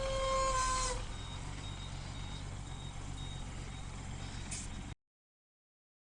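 A vehicle horn held on one steady note, ending about a second in, over a steady low engine and traffic rumble that cuts off abruptly about five seconds in.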